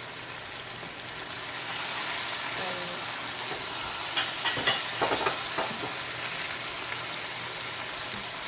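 Chicken and spice masala sizzling in hot oil as they are stirred in the pot, with a cluster of spoon scrapes and knocks about four to five and a half seconds in.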